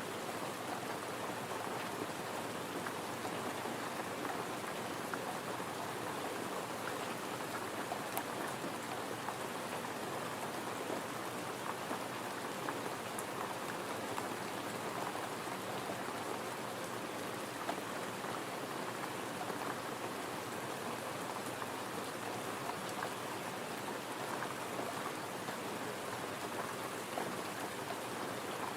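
Steady gentle rain falling: an even hiss with scattered small ticks of drops.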